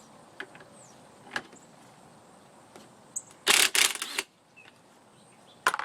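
Metal scooter clutch parts and tools clinking as the old clutch is worked off: a few light clicks, then a loud clatter of several quick metal knocks about three and a half seconds in, and another click near the end.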